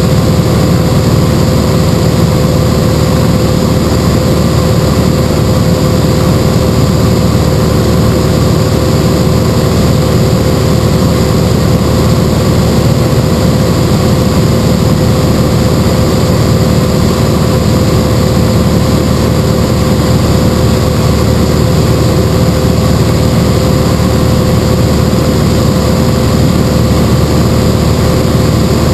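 Single-engine propeller airplane in flight: the engine and propeller run loud and steady with no change in pitch, a steady tone riding over the rumble.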